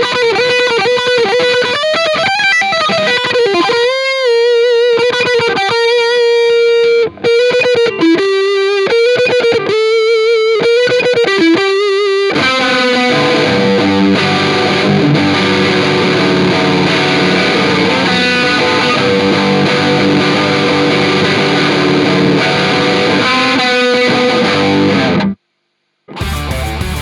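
Distorted electric guitar playing a slow single-note melody with wavering pitch vibrato. About halfway through it changes to a sustained ringing chord, which cuts off suddenly near the end; after a brief gap, different music starts.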